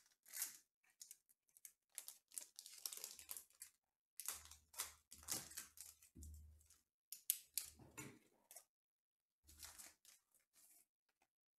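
Trading card packs and cards being handled: quiet, irregular rustles, slides and crinkles of wrappers and card stock, with a few soft low thuds in the middle.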